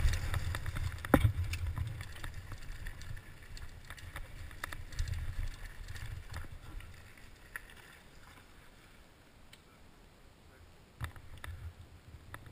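Giant Faith 2 downhill mountain bike rolling over a rocky dirt trail: uneven rumble with rattles and knocks from tyres and frame over stones, the sharpest knock about a second in. It goes quieter for the last few seconds as the bike slows, with a few more knocks near the end.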